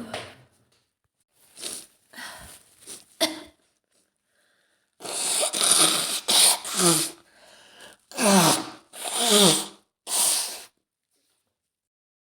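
A woman with a head cold sneezing again and again. There are small sneezes and catches of breath first, then a quick cluster of sneezes, then two fuller sneezes whose voiced part slides down in pitch, and one last sneeze.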